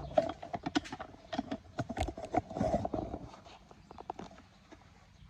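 Quick, irregular metallic clicks and knocks from a tool and hands working on a drop saw's blade assembly, thinning out toward the end.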